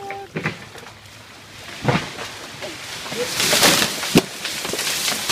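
A large tree branch breaking off and crashing down through the foliage: sharp cracks, then a loud rush of leaves and snapping twigs as it comes down, ending in a sharp knock near the end.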